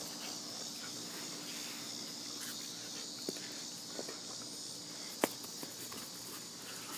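Steady high-pitched insect chirring, with a few soft knocks and one sharper click about five seconds in.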